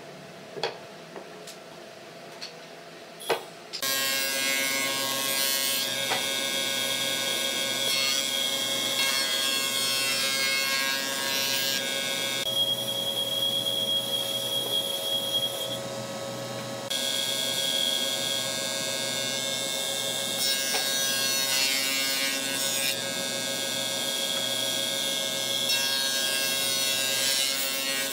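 A few sharp knocks, then from about four seconds in a handheld electric sander runs steadily with a high whine while sanding a wooden table top, easing off for a few seconds about halfway through.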